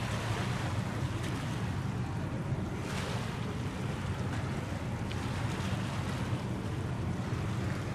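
Wind rushing over the microphone above a steady low rumble, with a brief louder gust about three seconds in.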